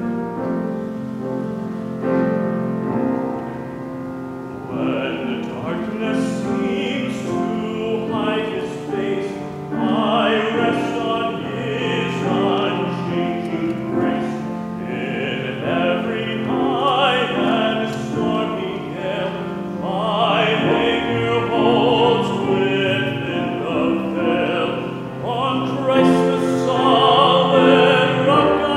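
A male soloist singing a hymn in a trained, classical style, with piano accompaniment.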